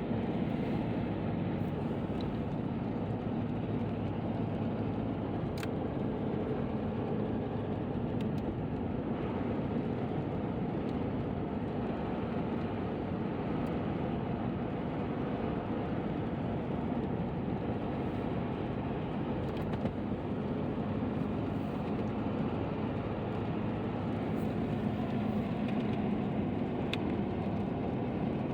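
Car driving along at a steady speed: continuous tyre and engine noise with a low hum.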